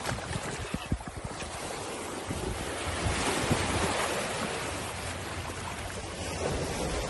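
Wind buffeting the microphone, a steady rushing noise with uneven low rumbles, over the wash of the sea.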